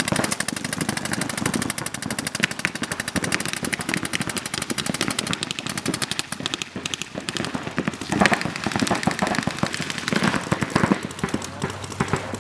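Paintball markers firing in rapid, sustained strings of shots, many per second.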